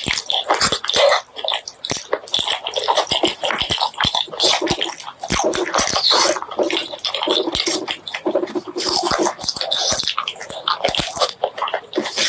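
Close-miked wet chewing and lip-smacking of a mouthful of pork curry and rice, with many quick sticky clicks.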